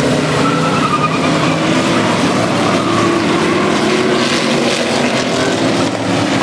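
Several race car engines running together on a short oval track, their pitch rising and falling as the cars accelerate and lift.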